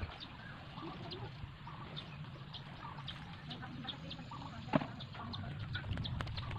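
Small birds chirping in short, scattered calls over a low outdoor background, with a single sharp knock a little under five seconds in.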